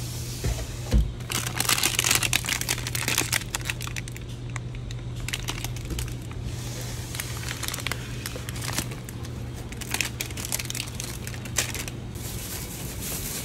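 Plastic ice-cream bar wrappers crinkling and rustling as hands rummage through a freezer bin and drop the bars into a plastic shopping basket, with a knock about a second in. A steady low hum runs underneath.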